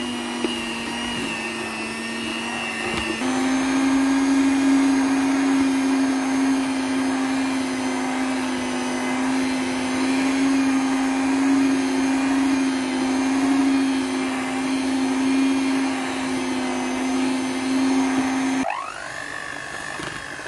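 Electric mixer whisking thick double cream as it churns into butter, running with a steady hum that strains under the thickened cream. Its pitch steps up slightly about three seconds in, and it stops abruptly near the end.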